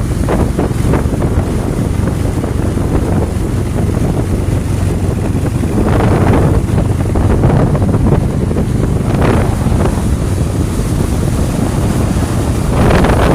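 Mud boat's motor running steadily under way, with heavy wind buffeting on the microphone and louder rushes of noise about six, nine and thirteen seconds in.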